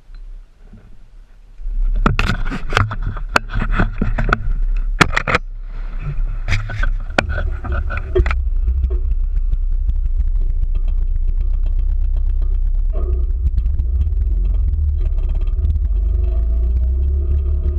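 Knocks and rustling of the camera rubbing and bumping against camouflage clothing. Then, about eight seconds in, the steady low drone of a Polaris Ranger utility vehicle's engine as it drives.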